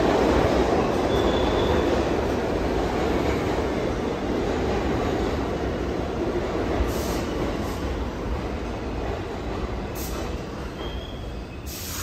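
New York City subway train (R142A cars on the 6) rolling into an underground station and slowing to a stop, with a steady rumble of wheels on rail that gradually fades. Brief, faint wheel squeals come about a second in and again near the end.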